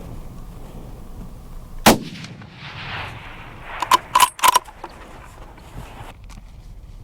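A single rifle shot cracks about two seconds in and rolls away in an echo over about a second and a half. Three quick metallic clicks with a slight ring follow.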